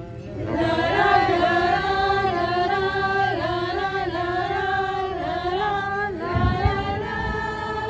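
Singing with music: a slow melody of long held notes that slide between pitches, the chorus of a tribute song. A few low bumps come about six and a half seconds in.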